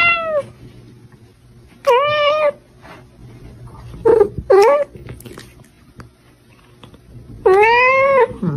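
Pet cats meowing, five separate meows: a medium one at the start, another about two seconds in, two short quick ones in the middle, and a longer meow near the end that rises and then falls away.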